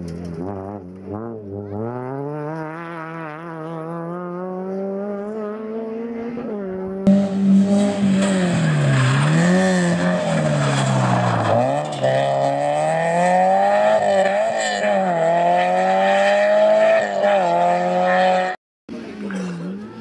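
Four-cylinder rally hatchbacks driven flat out on a stage. The engines rev up and drop again and again through gear changes. About seven seconds in, the sound switches abruptly to a louder car with more hiss and tyre noise. Near the end it cuts out briefly before another engine comes in.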